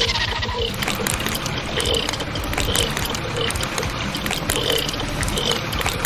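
A construction vehicle working: a steady engine-like rattle with a short, regular clank or beep about every two-thirds of a second.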